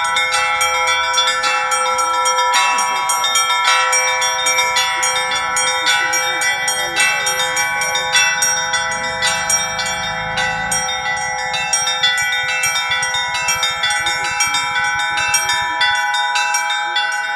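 Russian Orthodox church bells rung in a continuous peal: rapid strikes on the small bells over the steady ringing of the larger bells.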